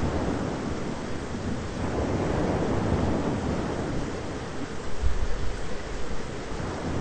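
Thunderstorm: a steady rushing hiss with rolling low rumbles of thunder, the deepest and loudest about five seconds in.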